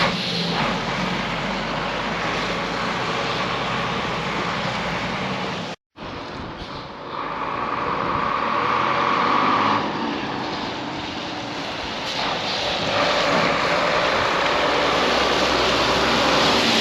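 Volvo F7 lorry's six-cylinder diesel engine running through its newly fitted Eminox exhaust. The sound breaks off for a moment about six seconds in, then carries on a little louder.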